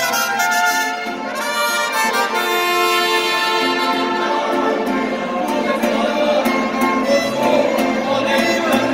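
Mariachi band playing an instrumental passage. Violins carry the melody with trumpets, over strummed vihuela rhythm.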